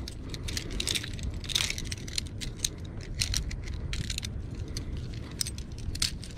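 Metal sailing blocks and shackles of a mainsheet tackle clinking and rattling together as they are handled, in irregular light clicks, over a steady low rumble.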